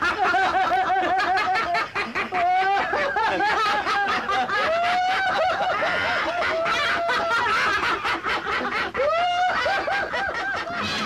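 Several men laughing heartily together, their voices overlapping in quick, repeated 'ha-ha' pulses.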